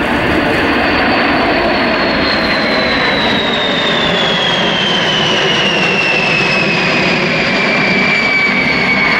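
B-52 Stratofortress bomber flying past with its eight jet engines running: a loud, steady jet roar with a whine that falls slowly in pitch as it passes.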